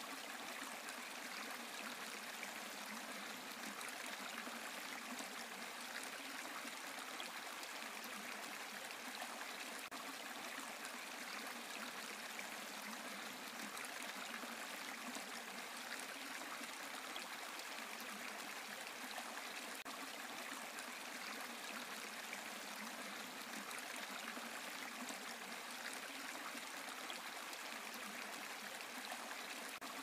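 Small waterfall: water spilling over a rock ledge and splashing onto the stones below in a steady, unbroken rush.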